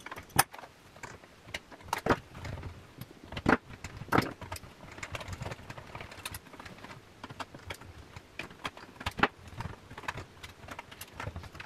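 Small hand tools and parts clicking, tapping and scraping against the plastic front panel and metal chassis of a Pioneer A-445 amplifier as it is taken apart: irregular clicks and knocks, a few sharper and louder than the rest.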